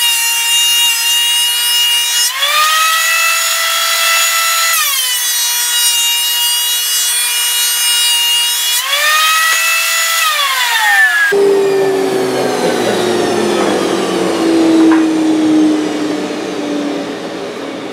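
Delta 12-inch portable thickness planer running on a light pass through pine boards. Its high whine drops in pitch twice as the two boards feed through the cutterhead and rises again between them. About 11 seconds in it is switched off and winds down with a falling whine.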